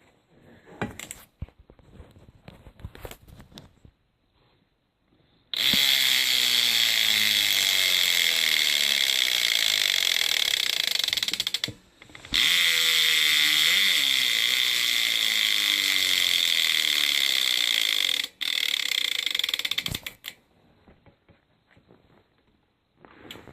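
Colony Wasp cassette hub on a BMX rear wheel freewheeling: the pawls click so fast they make a loud ratcheting buzz. The buzz starts about five seconds in and breaks off twice as the wheel is spun again, and each time its pitch falls as the wheel slows. Before it, a few light clicks.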